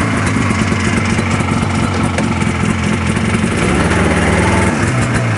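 Buran 640 snowmobile's two-stroke twin-cylinder engine idling steadily.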